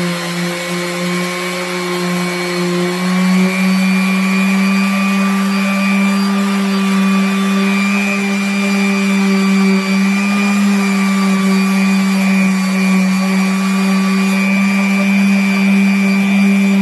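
Electric random orbital sander running steadily with an even hum, its 80-grit pad pressed flat on a cured resin finish.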